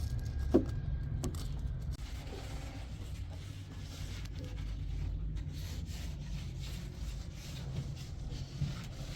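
Rubbing and scraping from household cleaning, with scattered light knocks and one sharp knock about half a second in, over a steady low hum.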